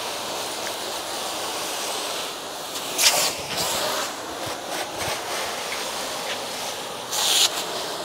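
Garden hose pistol nozzle spraying a steady hissing jet of water onto plastic car bumper covers, with louder, sharper bursts about three seconds in and again near the end.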